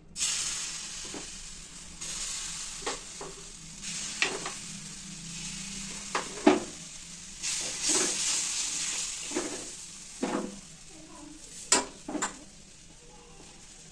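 Besan chilla batter sizzling as it hits a hot oiled iron tawa; the hiss starts suddenly and goes on throughout. A spoon clinks and scrapes against the metal about ten times as the batter is poured and pushed out.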